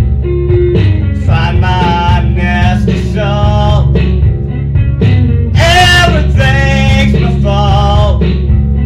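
A song with a male voice singing over guitar, in phrases of a second or two.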